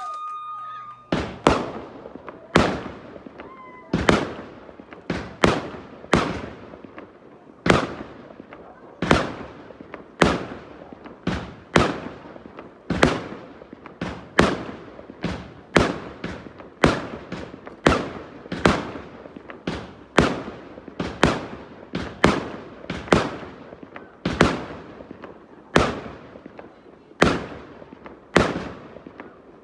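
Fireworks going off in a long, regular string of sharp bangs, each dying away quickly. They come about a second and a half apart at first and closer together as it goes on.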